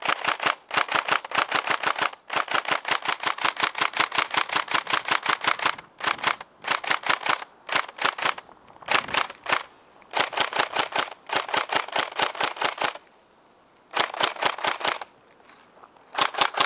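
Tokyo Marui Next Gen G36K electric recoil-shock airsoft rifle firing rapid full-auto bursts of varying length, some short and some several seconds long, with brief pauses between them and a longer lull near the end.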